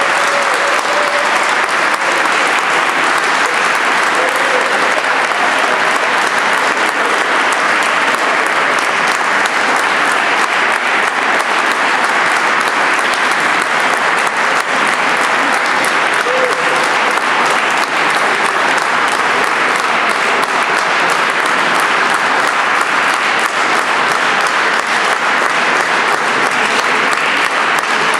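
Audience applauding, a dense, steady clapping that keeps up at an even level.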